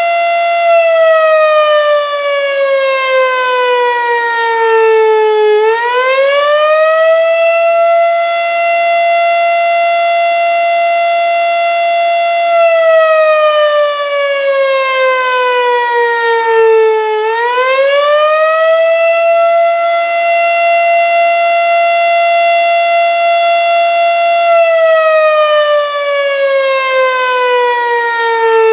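Federal Signal STH-10 outdoor tornado warning siren sounding the attack signal in a test. A single loud wailing tone holds high, slides slowly down for about five seconds, then climbs quickly back up, repeating about every twelve seconds.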